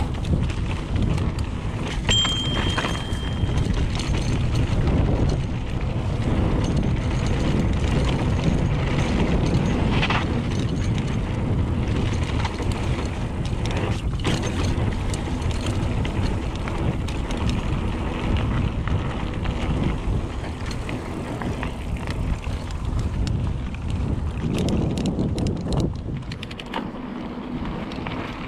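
A mountain bike riding down a dirt trail: tyre noise on the dirt and wind rushing over the microphone, with the bike rattling and clicking over bumps throughout. There is a brief high squeak about two seconds in.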